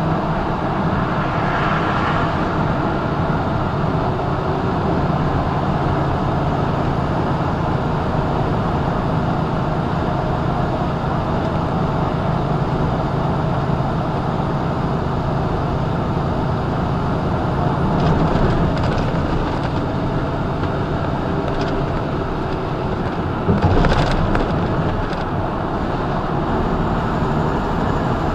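Steady road and engine noise of a semi truck cruising on a highway, heard inside the cab. A brief, louder knock comes about four seconds before the end.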